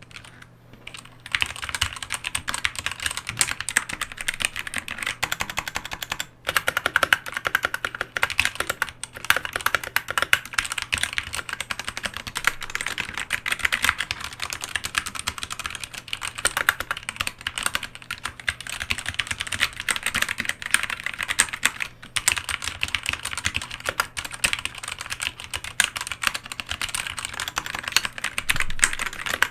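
Typing on a BlitzWolf BW-KB1 63-key mechanical keyboard with Gateron red (linear) switches: a fast, continuous run of keystroke clacks that starts about a second in and breaks off for a moment a few times.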